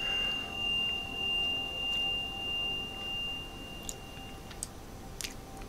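A single high, pure sustained tone that swells and fades slowly in loudness and cuts off about four and a half seconds in, followed by a few faint clicks.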